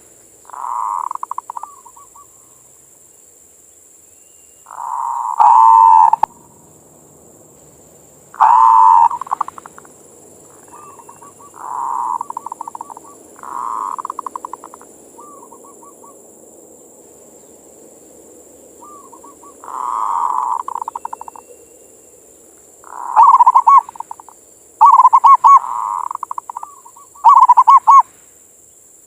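Zebra dove (perkutut) cooing: about nine phrases of quick, trilled coos, each a second or so long, with gaps of a few seconds between, several of them very loud. This is the perkutut's manggung song.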